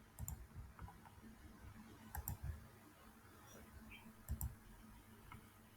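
Faint computer mouse clicks: four or so quick double clicks of press and release, spaced a second or two apart, over quiet room tone.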